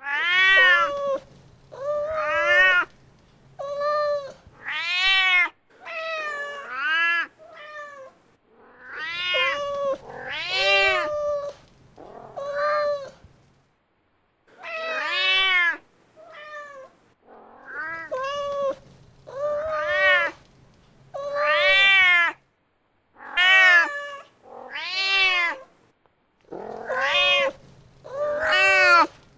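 A mother cat meowing over and over, calling for her kitten: short calls that rise and fall in pitch, about one a second, with brief pauses between runs.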